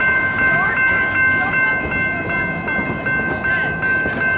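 Two General Signal electronic railroad-crossing bells ringing together in a steady, rapid rhythm, over the noise of the passing open-car park train.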